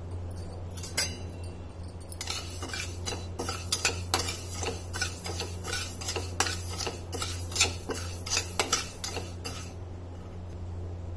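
Flat steel spatula scraping and clinking against a metal kadhai as fenugreek seeds are stirred and dry-roasted in it, in quick irregular strokes. The stirring starts about two seconds in and eases off near the end, over a steady low hum.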